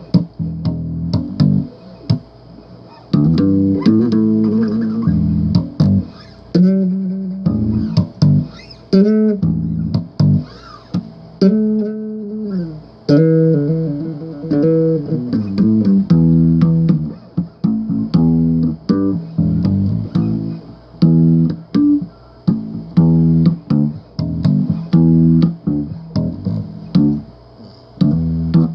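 Solo bass guitar riffing: plucked low notes in a choppy rhythm, with some notes sliding up and down in pitch.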